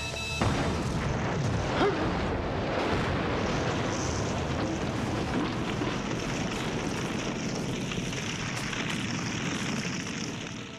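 Large explosion blast about half a second in, followed by a long, heavy rumble as the fire and debris carry on, easing slightly near the end.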